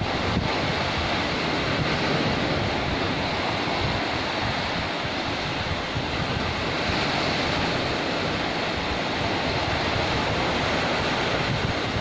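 Small sea waves washing onto a sandy beach in a steady rush of surf, with wind rumbling on the microphone.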